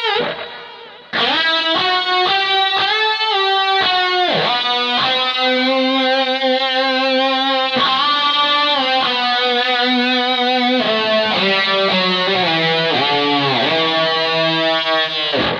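B.C. Rich Gunslinger electric guitar played through an Ibanez Metal Screamer overdrive into the Gallien-Krueger 250ML combo's built-in speakers: a distorted lead line of sustained single notes with string bends and vibrato, with reverb and delay added. It comes in about a second in after the previous note dies away, and near the end a note bends down and fades.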